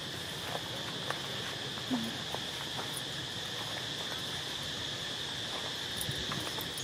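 Steady high-pitched drone of insects chirring in the background, with a few faint scattered clicks and a brief low sound about two seconds in.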